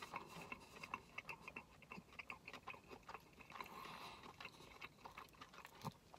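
A person chewing a bite of fried chicken close to the microphone, with faint, irregular wet mouth clicks throughout.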